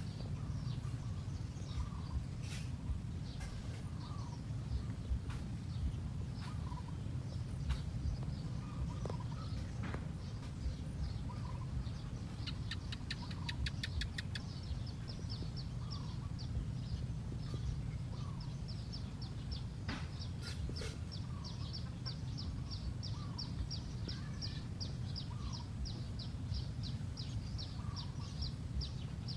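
Chicken clucking in short calls every second or two over a steady low rumble. From about twelve seconds in, a fast high ticking trill joins in and then runs on through the second half.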